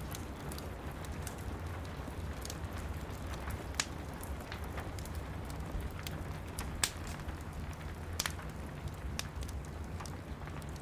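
Wood fire crackling with sharp, irregular pops, over a steady hiss of rain and a low rumble.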